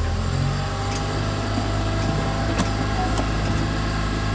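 Small sailing catamaran's engine running steadily as the boat motors away from the quay, heard from on board, with a light click about two and a half seconds in.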